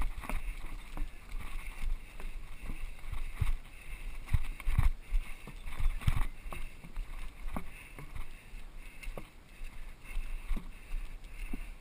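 Runners' footfalls stepping in and out of a field of rubber tyres: irregular heavy thumps, several a second at times, over a steady rushing background.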